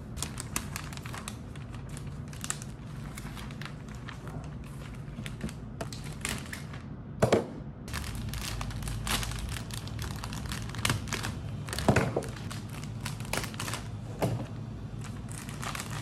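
Clear cellophane florist's wrap crinkling and rustling as it is handled and gathered around a flower basket, with two louder crinkles about halfway and three quarters of the way through.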